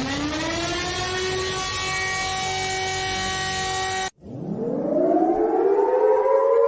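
Civil defense siren winding up quickly to a steady wail, cutting off abruptly about four seconds in; a moment later it winds up again, rising slowly in pitch.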